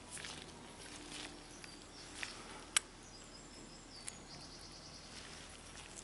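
Faint handling sounds of a chain breaker tool being seated on a bike chain: gloved hands shifting and light clicks of metal, the sharpest click a little before the middle.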